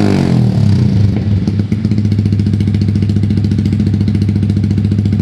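Yamaha R15 V3 single-cylinder engine running through a Daytona full-system exhaust with no baffle fitted, very loud. The revs fall back from a blip in the first second or so, then it idles steadily with an even pulse, in a walled basement that makes it sound even louder.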